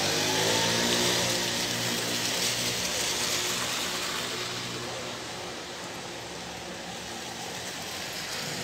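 Heavy rain falling as a steady hiss, with a motor vehicle's engine hum that fades away over the first five or six seconds.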